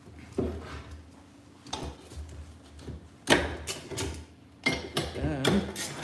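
Socket ratchet being worked on small bolts of an aluminium oil pan, with irregular metallic clicks and clatter as the tool and parts are handled, loudest a little past the middle and near the end.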